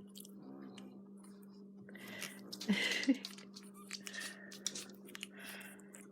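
Pug puppies chewing and mouthing at each other: soft wet smacks and small clicks, with a louder scuffle about three seconds in. A steady low hum runs underneath.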